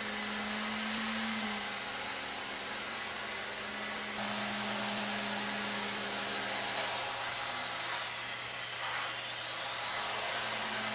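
Heli-Max Novus CX micro helicopter's small electric motors and counter-rotating main rotors whirring steadily in a hover, with a high whine. About eight seconds in, the whine dips in pitch and climbs back up.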